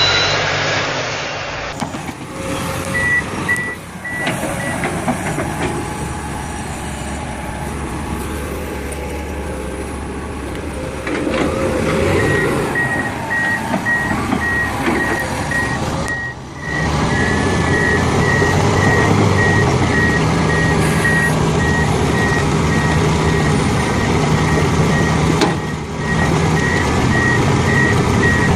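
Heavy machinery's reversing alarm beeping in a steady, regular pattern over a loud diesel engine running. The sound breaks off abruptly several times.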